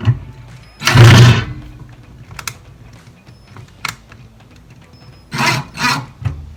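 Handling noises from fitting a microwave turntable drive motor back into its mount: a loud scrape about a second in, a few sharp clicks, then two quick rubbing scrapes near the end.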